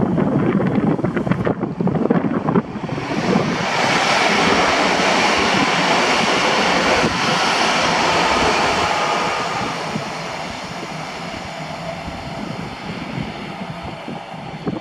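Newag Impuls 2 electric multiple unit (ŁKA 36WEd) running past along the platform. Its running noise swells about three seconds in, stays loud while it passes, then fades away over the last few seconds as it moves off. Wind buffets the microphone at the start.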